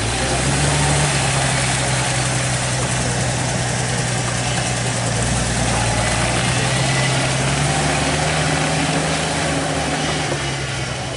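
Bullnose Ford Bronco's engine running at low, steady revs as the truck crawls through a muddy trail, its pitch stepping up slightly about a second in and again about two-thirds of the way through, over a steady hiss.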